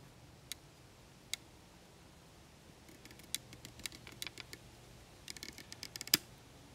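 Small sharp clicks and knocks of peeled wooden stool parts tapping together as the peg-stool frame is handled and fitted: two single clicks, then quick irregular runs of them, with one louder knock near the end.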